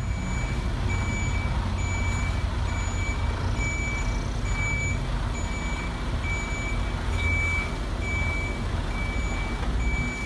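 Truck reversing alarm beeping steadily, about one and a half beeps a second, over a low diesel engine rumble, as the toy MAN crane fire truck backs into the station hall.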